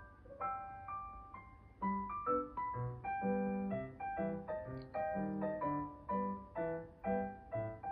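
Background piano music: a gentle melody of single notes, joined by a lower accompaniment about two seconds in.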